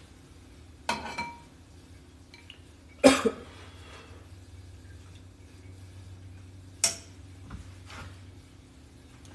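Chopsticks and a ceramic bowl clinking against each other and the pot: three sharp clinks, the loudest about three seconds in, with a few lighter taps near the end, over a low steady hum.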